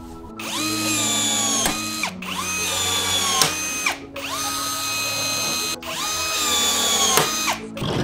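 Cordless electric rivet gun running four times, about two seconds apart, setting blind rivets: each run is a motor whine that starts high, drops in pitch and levels off, with a sharp click near its end.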